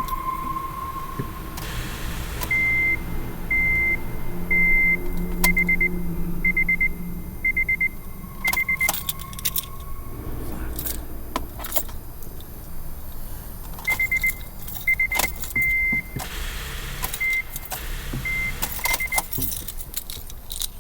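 Electronic warning chime of a 2007 Honda Civic beeping at one steady high pitch in irregular runs of short and longer beeps, with keys jangling and sharp clicks. The car has a drained electrical system after its battery warning light came on while driving, and it won't start.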